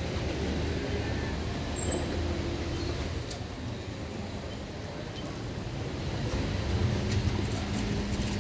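Low, steady rumble of motor vehicles and traffic, with a short sharp knock about three seconds in and a steady low hum setting in near the end.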